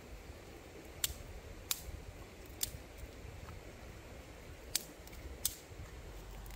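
Five short, sharp clicks or snips at uneven intervals, over a faint low rumble.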